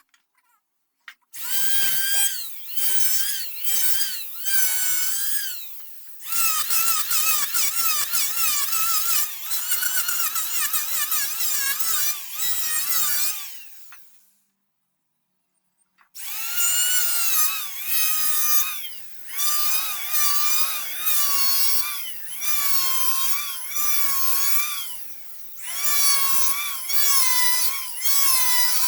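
Electric drill running in repeated bursts of a few seconds each, its high whine wavering in pitch as it works into wood.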